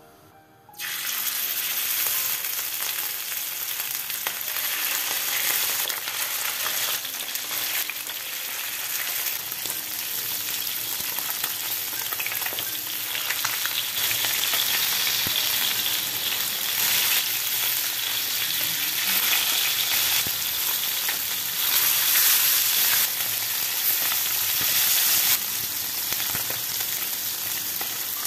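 Pieces of Caspian kutum fish sizzling steadily as they fry in hot vegetable oil in a nonstick frying pan, the sizzle starting suddenly about a second in.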